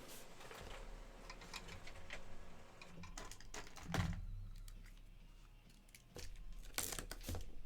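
Typing on a computer keyboard: a scattered run of key clicks, with a single louder thump about four seconds in.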